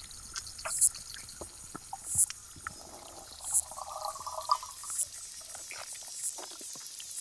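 Underwater hydrophone recording of a male lesser water boatman stridulating by rubbing his penis against his abdomen. Short, high chirps repeat about every second and a half among scattered clicks, with a lower buzzing stretch about three seconds in.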